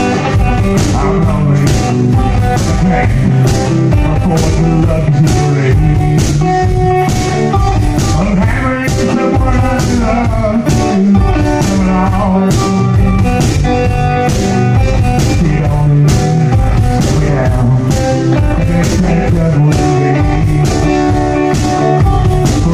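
Live one-man-band blues-rock: electric guitar played over a steady drum beat of about two strokes a second, with a man singing at times.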